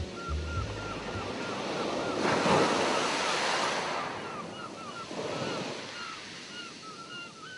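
A rush of surf-like noise that swells to a peak about three seconds in and ebbs away, with a smaller swell a couple of seconds later. A string of short, high chirps repeats about three times a second throughout.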